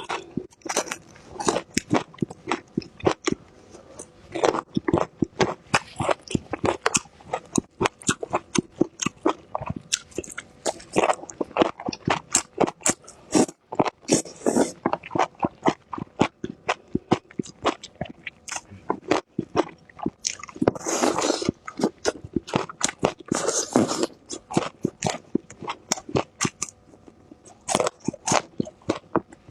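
Close-miked crunchy chewing of bird's eye chili peppers and enoki mushrooms: rapid wet crunches several times a second, with a few longer noisy stretches in the middle.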